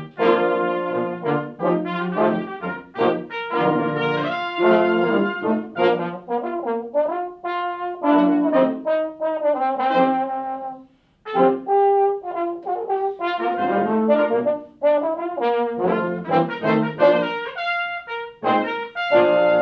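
Brass sextet of trumpets and trombone playing a piece together, several parts moving in harmony. It breaks off for a moment about eleven seconds in, then carries on.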